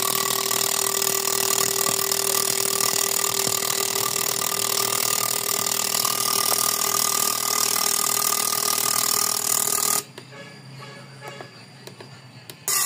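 A machine running steadily with a strong hiss and a steady multi-tone hum, cutting off abruptly about ten seconds in.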